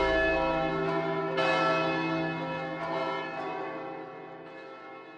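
Large tower bells ringing, struck again every second and a half or so, each stroke's ringing dying away so that the peal fades out toward the end.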